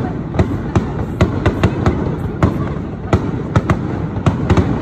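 Aerial fireworks shells bursting in rapid, irregular succession: sharp cracks about three a second over a continuous low rumble.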